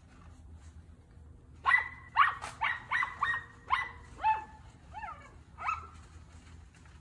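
Miniature dachshund barking at quarry hidden in a brush pile: a quick run of about ten high barks over some four seconds, coming further apart and dropping in pitch toward the end.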